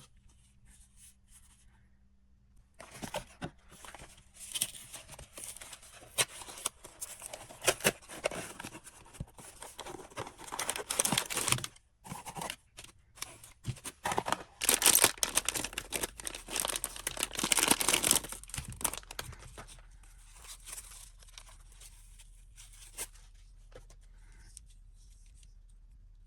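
Blind-box packaging being torn open and crinkled by hand: a long run of crackling and tearing, with a brief pause about halfway through and the loudest tearing soon after.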